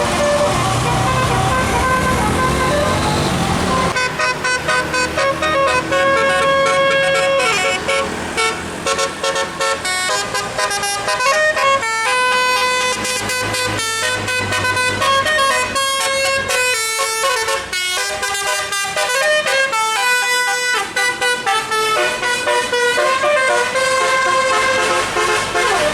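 Bus telolet horn, a multi-tone melodic horn, playing a long tune of quick stepped notes, starting about four seconds in after a few seconds of engine and road noise.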